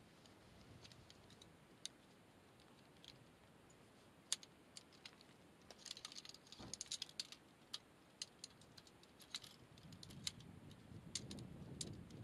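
Faint, scattered clicks and light knocks of a folding metal camp-furniture frame being handled and unfolded, with a quick run of clicks around the middle.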